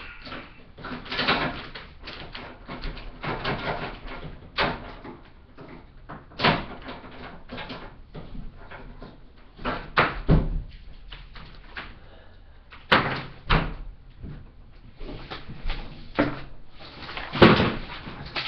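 A series of irregular knocks and thuds, about ten spread unevenly, some dragging on briefly like a bump with rustle, the loudest near the end.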